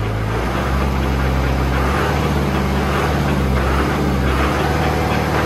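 Kubota M1-85 tractor's diesel engine running with the PTO engaged, driving the rear-mounted rotary tiller. The engine speed steps up a little about half a second in and again about two seconds in.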